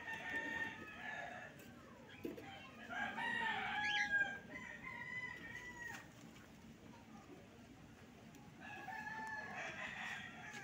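Rooster crowing: three long crows, one at the start, one about three seconds in, and one near the end.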